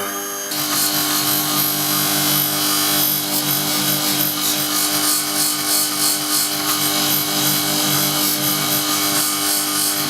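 Steel scissor blade being ground against the diamond-paste polishing plate of a spinning flat hone: a steady motor hum under a rasping hiss. The hiss comes in about half a second in and pulses a few times a second with the rocking strokes of the blade.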